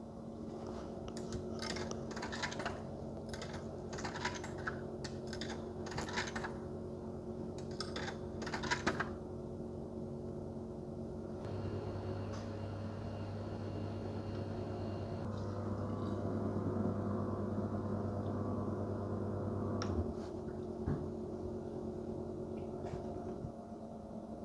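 Coins clinking as they are dropped one after another into a Brunimat milk vending machine's coin slot, a run of sharp clicks over several seconds. About halfway through, the machine starts dispensing milk into a glass swing-top bottle with a steady hum that stops suddenly, followed by a single click; a constant low machine hum lies beneath throughout.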